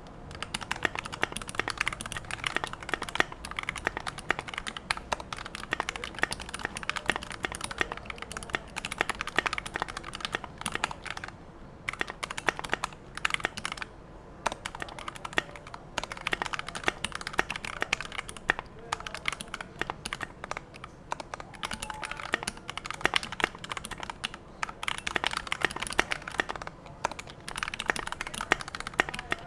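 Fast continuous typing on a TOFU68 custom mechanical keyboard with lubed Gateron Yellow linear switches in a stainless steel plate: a dense stream of key clacks with a few brief pauses between bursts.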